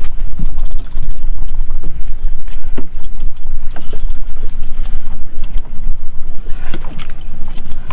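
Wind buffeting the microphone: a loud, fluctuating low rumble, with scattered light clicks and knocks through it.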